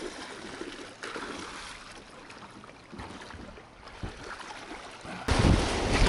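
Quiet river water with a few faint knocks. About five seconds in it cuts suddenly to loud wind buffeting the microphone over rushing river water, as an inflatable raft runs down choppy current.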